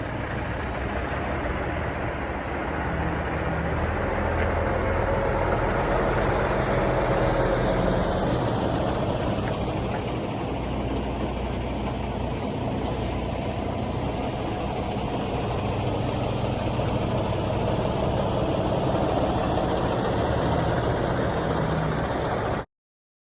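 Semi-truck engine and road noise while driving: a steady drone with a low engine hum underneath. It cuts off suddenly near the end.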